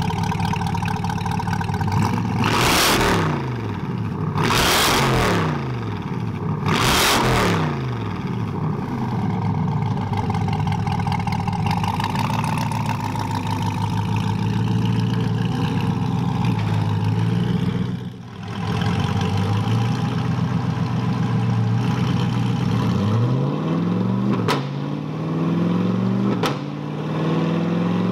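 2020 Chevrolet C8 Corvette's 6.2-litre LT2 V8 idling and being blipped three times in quick succession, a couple of seconds apart, from about two seconds in. It then settles back to idle, with a few more short revs near the end.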